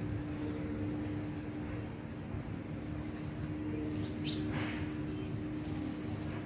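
A steady mechanical hum, with one short falling chirp about four seconds in.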